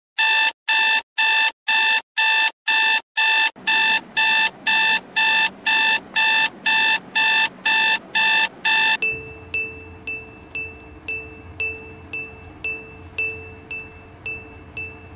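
Alarm clock beeping loudly, about two short electronic beeps a second. About nine seconds in it stops suddenly and gives way to softer, ringing pings at about the same pace, each dying away quickly.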